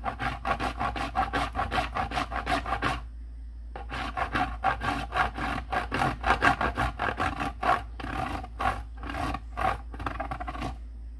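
Candle wax grated on a flat metal cheese grater: quick back-and-forth rasping strokes, about four or five a second. The strokes pause briefly about three seconds in, then resume and stop near the end.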